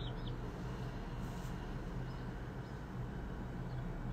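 Quiet room tone: a steady low hum with faint hiss.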